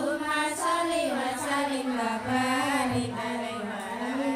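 One woman's voice chanting a religious recitation in a slow melodic line, the pitch rising and falling through long held phrases with brief breaks.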